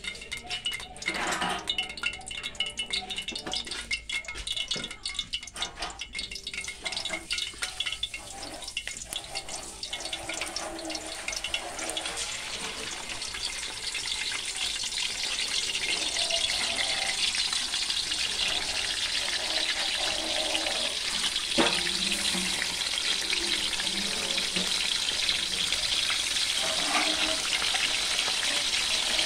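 Small fish frying in hot oil in a wok over a wood fire. The sizzle builds from about ten seconds in and then holds steady. It follows scattered clicks and knocks in the first several seconds.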